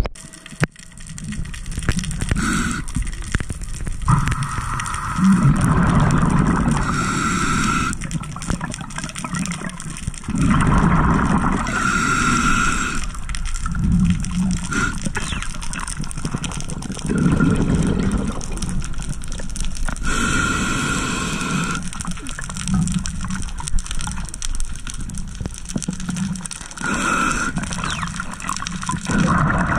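Scuba diver breathing through a regulator underwater: hissing inhalations alternate with bubbling exhalations, about one breath every five to seven seconds.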